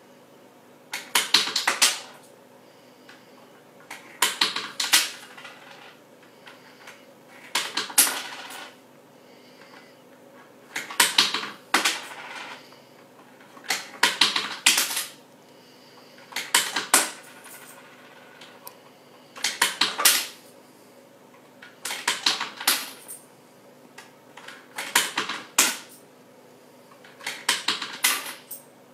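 Coins rattling in a money box: short clattering bursts of several sharp clicks, about every three seconds.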